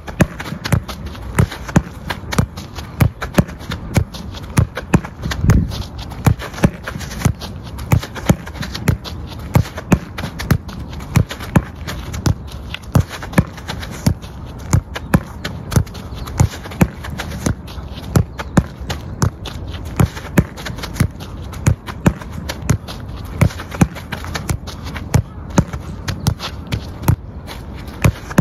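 A football kicked repeatedly against a concrete wall and played back first-time: a steady run of sharp thumps from the foot striking the ball and the ball hitting the wall, about one to two a second, with light footsteps between.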